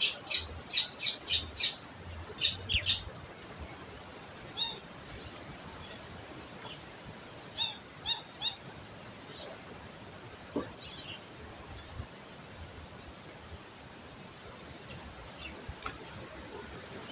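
A bird calling in a series of short, sharp chirps, about eight in quick succession in the first three seconds and three more around eight seconds in, over steady outdoor background noise.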